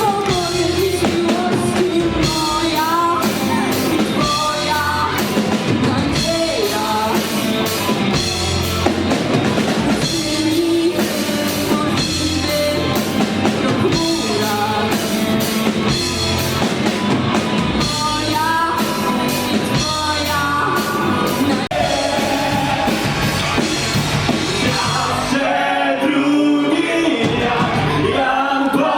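Rock band playing a song with a singer over a drum kit. The drums and cymbals drop out for a moment near the end while the voice carries on.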